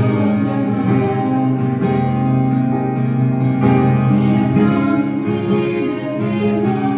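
Three women singing a Christian song together into microphones over a PA, holding long notes, with instrumental accompaniment.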